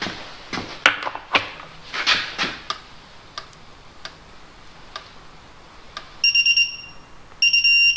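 Torque wrench ratcheting in a string of clicks while tightening the oil filter housing cap on a Mercedes M113 V8, then two long high electronic beeps, about six seconds in and near the end: the digital torque wrench signalling that the set torque has been reached.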